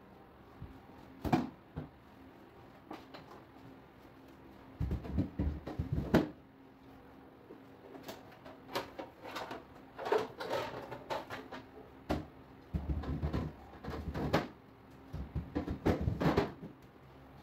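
Plastic refrigerator shelf and food packages being put back into the fridge: scattered knocks and clicks of plastic with rustling packaging, in several short bursts, the sharpest knock about six seconds in.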